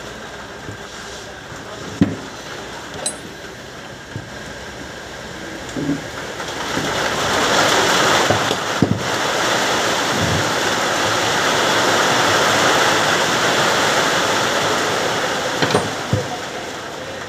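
Ring spanner and loose metal parts knocking sharply now and then against a car starter motor's housing as it is taken apart. Behind them a loud, steady rushing noise swells from about six seconds in and eases off near the end.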